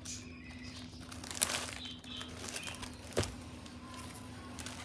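Rustling of sheer organza and clear plastic gift wrapping as it is pulled open over a basket, with two sharp clicks about one and a half and three seconds in. A steady low hum runs underneath.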